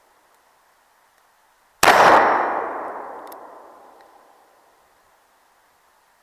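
A single shot from a .44 caliber black-powder cap-and-ball revolver about two seconds in, with the clang of the steel target it hits, ringing and dying away over about three seconds.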